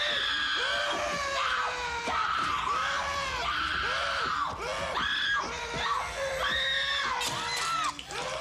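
A woman screaming in terror while being seized and struggling: a long run of short, high screams, one after another with hardly a pause.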